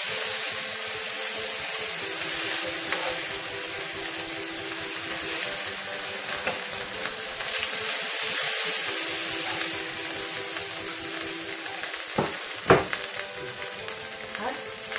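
Steak sizzling in a hot frying pan, a steady hiss, as the pieces are turned and lifted out with a spatula. A couple of sharp knocks come near the end.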